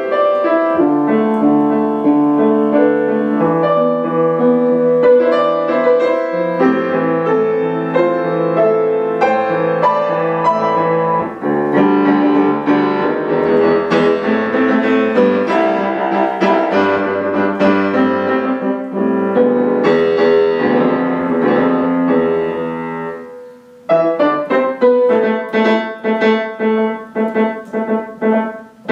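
Grand piano played solo, a continuous passage of many quickly changing notes. About four fifths of the way through it fades to a short pause, then resumes with repeated struck chords, about two a second.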